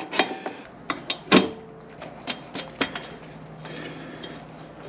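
Metal clinks and taps of a wrench on the Yamaha TW200's rear drum brake rod, spring and arm hardware as it is fitted, with a short metallic ring about a second and a half in, then a few lighter ticks.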